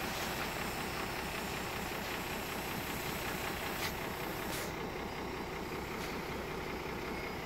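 Fendt 612 LSA tractor's six-cylinder diesel engine running steadily, with two brief clicks around the middle.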